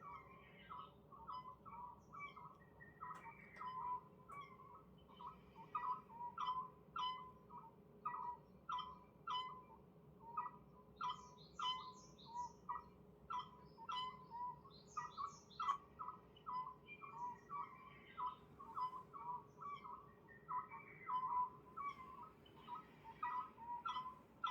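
Birds calling: a steady run of short whistled notes, about two a second, with higher chirps mixed in now and then.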